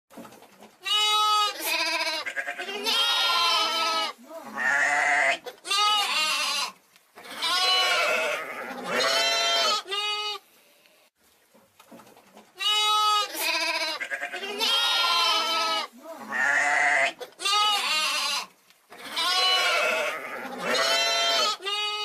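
A young sheep (hogget) bleating, a run of loud, wavering bleats in quick succession with short pauses between them. The same run of bleats repeats after about eleven seconds.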